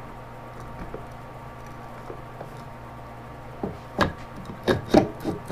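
Low steady shop hum, then from about three and a half seconds in a quick run of sharp metal knocks and clunks as a YZ250 two-stroke cylinder is worked down over the piston and base studs onto the crankcase.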